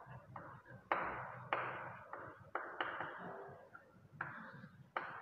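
Chalk writing on a chalkboard: a string of about six sharp taps, each trailing into a short scratch as a word is written.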